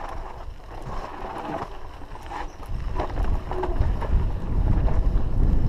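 Wind buffeting the microphone, with tyre rumble and chassis rattle from a mountain bike descending a dry dirt trail. The low rumble grows louder from about halfway through, with scattered clicks and knocks as the bike runs over rough ground.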